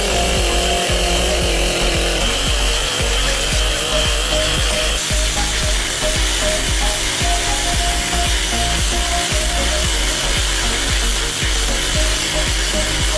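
Engine-driven rail grinder running, its grinding wheel ground against the rail head to dress down a fresh weld, a steady noisy rasp that carries on without a break.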